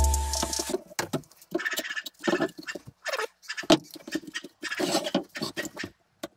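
Hand tools scraping wood in short, irregular strokes with pauses between them: a flathead screwdriver, standing in for a chisel, and a utility knife gouging out a pocket in a wooden guitar body. A music track fades out in the first second.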